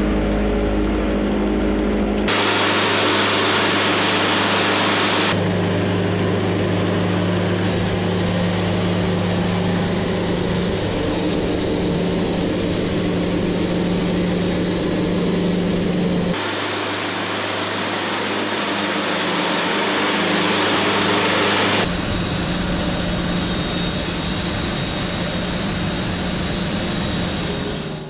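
Wood-Mizer band sawmill running and sawing through a wooden timber. A steady engine and blade sound that changes abruptly several times.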